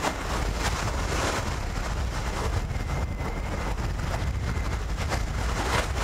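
Small sea waves washing onto a sandy beach in repeated surges, over a steady low rumble of wind on the microphone.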